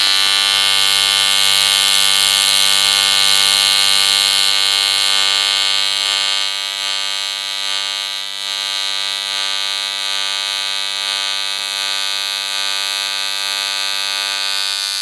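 AC TIG welding arc on aluminium sheet from an EWM welder: a steady, loud electric buzz with many even overtones, held without a break while the bead is laid.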